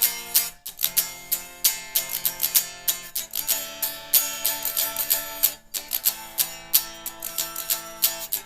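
Guitar strumming chords in a steady rhythm, with a short break about half a second in and another just past the middle, the chords changing as it goes.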